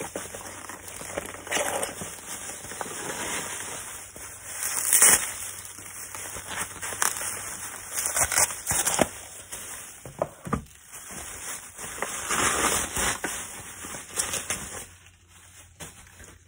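Plastic bubble wrap and cellophane packaging crinkling and rustling as packets are pulled out of the wrapping, in uneven spells, loudest about five seconds in.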